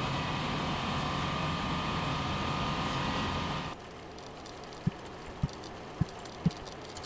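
Road noise inside a vehicle's cabin cruising on a paved highway, a steady rushing hum with a faint whine. About three and a half seconds in it changes abruptly to a quieter ride on a gravel road, with a few dull low knocks about every half second as the vehicle jolts over the rough surface.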